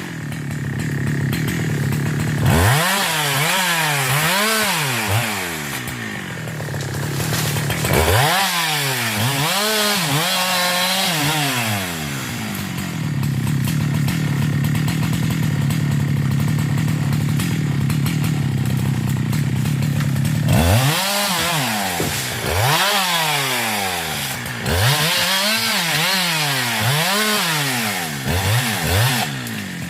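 A 372 two-stroke chainsaw revving up and down in repeated bursts, with a steady stretch at an even speed in the middle.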